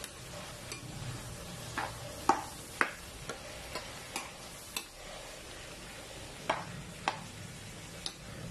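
A metal spoon clinking and tapping against a metal cooking pan, about a dozen sharp, irregularly spaced knocks over a steady low hiss.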